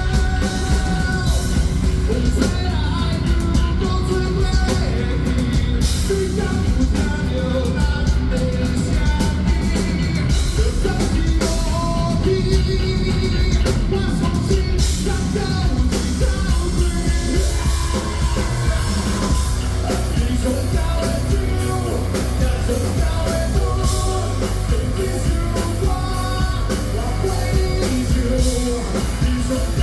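Heavy metal song with a singer over a full band, loud and steady throughout.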